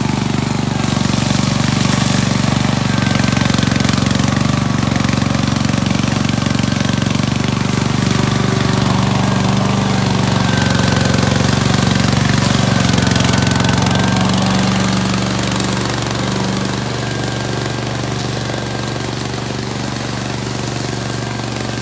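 Engine of a tracked remote-control lawn mower running steadily, easing off slightly about two-thirds of the way through.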